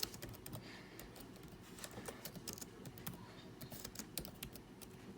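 Faint, irregular sharp clicks, several a second, spread unevenly.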